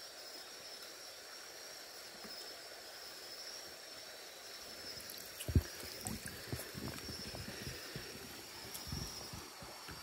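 Water trickling, then a landing net being lifted out of a shallow river. About five and a half seconds in there is one sharp knock, followed by a run of smaller knocks and splashes as the dripping net is brought in.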